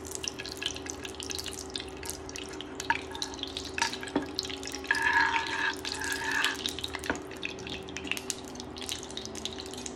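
Ghee melting in a hot non-stick frying pan, crackling and popping in scattered small clicks as a metal spoon stirs and presses the lumps, busiest about five to six and a half seconds in. A steady hum runs underneath.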